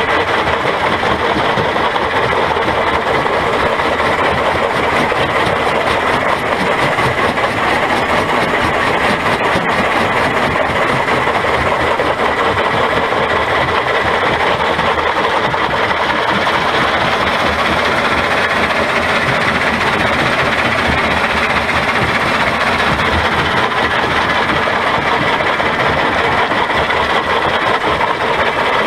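Quarry conveyor belt running and tipping crushed stone off its head end into a chute: a steady, loud, dense clatter of rock falling over steady machinery noise.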